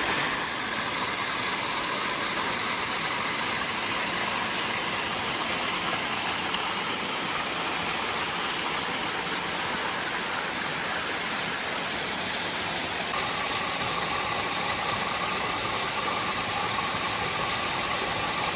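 Steady rushing hiss of a small waterfall, falling water heard up close. A faint steady tone joins about two-thirds of the way through.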